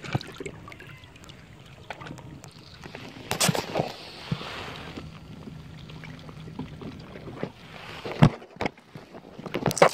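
Water splashing and dripping with scattered knocks and bumps against a plastic fishing kayak, as a camera just lifted out of the sea is handled. A louder cluster of bumps comes near the end.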